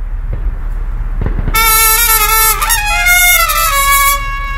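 Marching-band brass horns play a short phrase that steps down in pitch. It comes in about a second and a half in and stops just before the end, over a low steady rumble.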